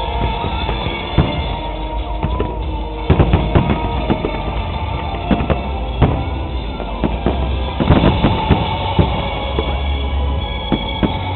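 Fireworks going off in many sharp bangs at irregular intervals, over loud music played for the display.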